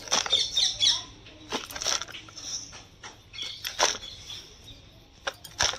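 A potting mix of soil, composted cow dung and neem cake being tipped into a plastic pot: the crumbly rustle and patter of falling soil, broken by several sharp knocks.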